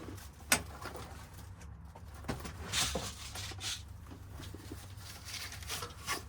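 Small parts and tools being handled on a workbench: one sharp click about half a second in, then a few short rustles and scrapes, over a steady low hum.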